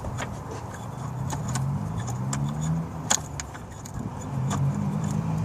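Light metallic clinks and rattles of hand tools and a loosened bolt against engine parts, a few sharp clicks spaced irregularly, over a low, wavering hum.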